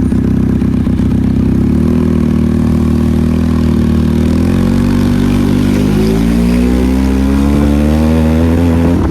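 Benelli motorcycle engine on its stock exhaust, running loud and steady at first; about two seconds in the note changes, then climbs steadily as the bike accelerates.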